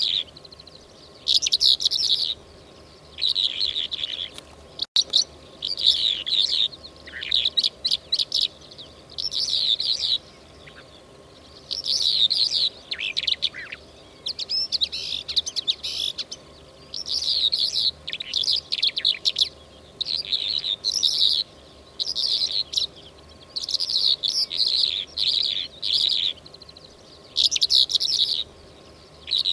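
Lark song, the bird hunters call al-mutawwaq or zar'i al-walwal, played as a hunting lure call. It comes in short bursts of chirping and trilling phrases, each about a second long, repeated every second or two.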